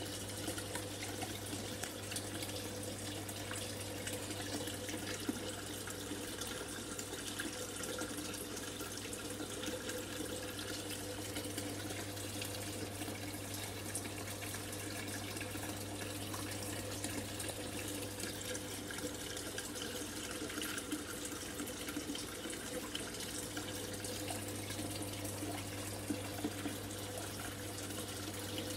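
Aquarium filter running: a steady trickle and splash of water into the tank, with a steady low hum underneath.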